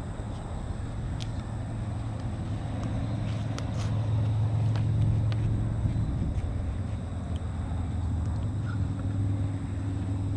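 A steady low engine hum, swelling to its loudest about halfway through, with a few faint clicks.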